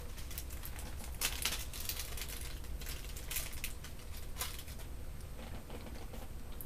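Light handling noise from a GoPro Hero3 camera body held and turned in the fingers: a few short scratchy clicks and rustles, most of them in the first four and a half seconds, over a low steady hum.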